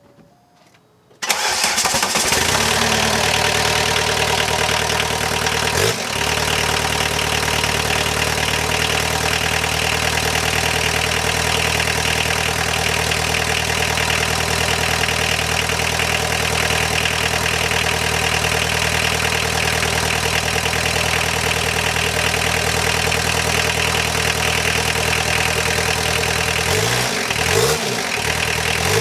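Freshly rebuilt 1.6-litre turbodiesel engine cold-starting at 3°C: it catches about a second in and then idles steadily. Near the end the revs rise and fall a couple of times.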